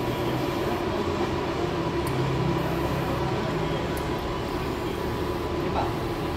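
Steady mechanical hum of a TIG welding machine and its water cooler running with no arc struck.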